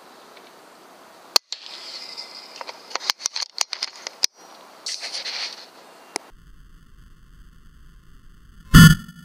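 A single loud shot from an FX Impact PCP air rifle near the end, a short sharp pop with a brief ringing tail. Before it comes a scattering of sharp clicks and short rustling noises.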